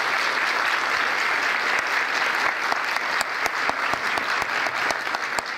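Audience applauding at the end of a talk, the clapping thinning out into scattered separate claps near the end.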